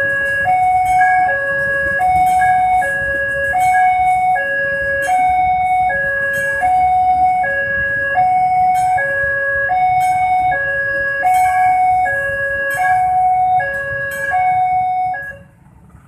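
Railway level-crossing warning alarm sounding a steady electronic two-tone 'ding-dong', one high-low pair about every 0.8 s, over the low rumble of a passenger train passing. It cuts off shortly before the end.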